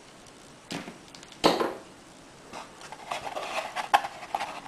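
Cardboard packaging being handled: two knocks, the second louder, then scraping and rustling with small clicks as a molded pulp tray is lifted and turned.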